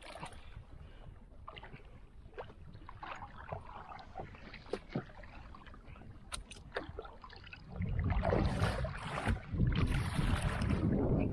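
Water splashing and lapping around a small wooden canoe as it is paddled, with scattered light knocks against the hull. About eight seconds in a louder, low rushing noise takes over.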